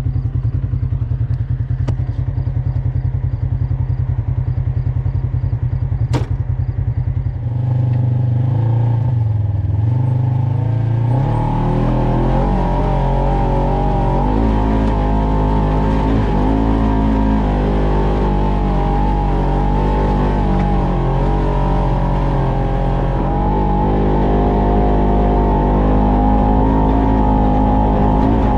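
Off-road vehicle engine running with a fast, even throb, then working harder from about eight seconds in, with a steady drone and a wavering pitch as the vehicle sets off up the trail.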